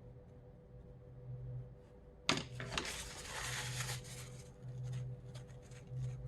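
Paper rustling and scratching from watercolour painting: a sudden rustle a little over two seconds in that lasts more than a second, then light scratches of a brush on paper. A steady low hum runs underneath.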